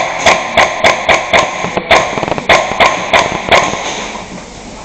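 Gas-blowback airsoft rifle (an FN SCAR-L MK2 MWS GBB) firing rapid single shots, about four a second, each a sharp clack of the bolt cycling. There are two strings of shots with a short pause about two seconds in.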